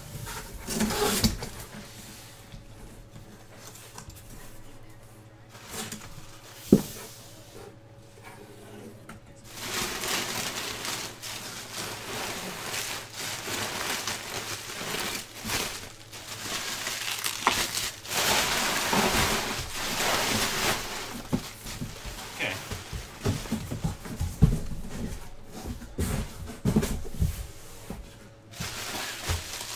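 Bubble wrap and plastic packaging crinkling and rustling as wrapped items are handled and lifted out of a cardboard box, mostly from about ten seconds in. A single sharp knock about seven seconds in.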